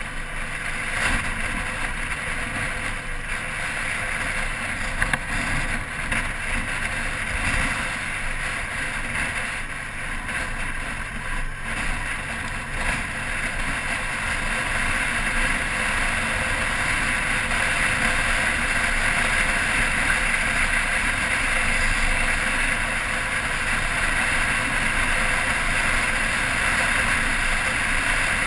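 Motorcycle on the move, heard from a camera mounted on the bike: the engine runs steadily under a rush of wind noise on the microphone, getting louder from about halfway through.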